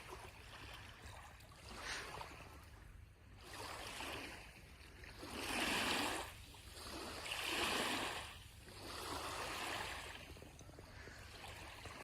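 Small lake waves washing in, one soft swell about every two seconds, over a steady low rumble.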